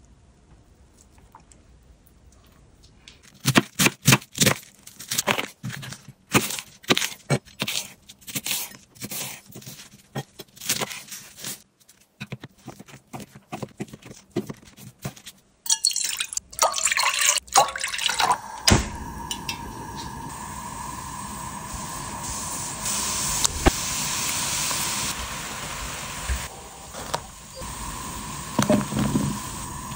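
A knife cutting thin fish cakes on a wooden cutting board: a long run of sharp, irregular strokes. After a few seconds of louder rustling, a pan of chili-flake sauce comes to the boil and bubbles steadily.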